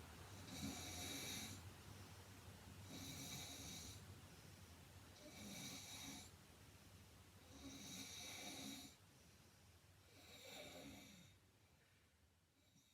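A 105 kg woman snoring in her sleep: five snores about two and a half seconds apart, each a rough rasp on the breath, growing fainter near the end.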